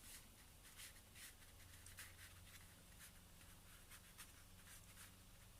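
Faint, irregular scratchy strokes of a paintbrush dragged over canvas, dry-brushing acrylic paint, over a steady low hum.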